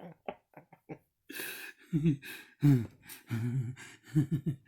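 A man's voice making wordless vocal sounds: short quick pulses, a breath, then drawn-out sounds that bend in pitch.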